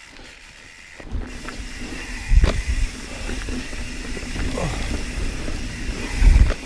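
Mountain bike riding fast down a dirt singletrack, heard from a camera on the bike: tyres rolling and rattling over the trail and wind rushing on the microphone, starting about a second in. Two loud low thumps, about two and a half seconds in and just before the end, from bumps in the trail or wind buffets.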